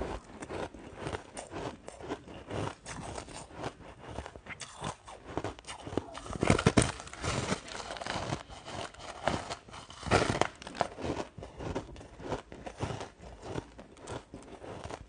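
Close-miked crunching and chewing of a frosty block of ice, with loud cracking bites about six and a half and ten seconds in, and small crackles between.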